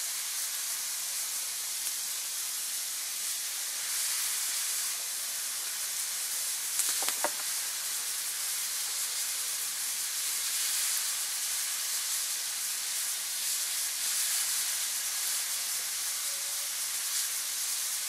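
Hot oil sizzling steadily in a cast-iron pan on the campfire, with one short sharp sound about seven seconds in.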